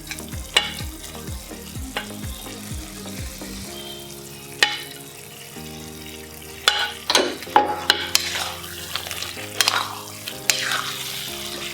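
Fried chicken pieces being stirred into hot masala gravy in a pan: a spoon scrapes and clinks against the pan over a frying sizzle. The stirring gets louder about halfway through.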